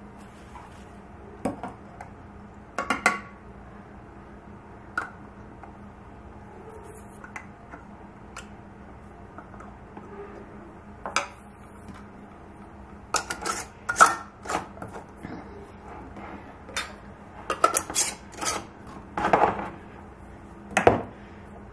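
Metal canning lids and screw bands clicking and clinking on glass mason jars as the lids are set on and the bands screwed down finger tight. A few scattered clinks come first, then a busier run of them in the second half.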